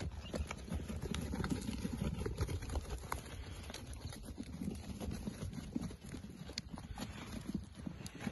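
Hooves of a small flock of Dorper sheep trotting over dry sandy ground: many quick, irregular hoof falls over a low rumble.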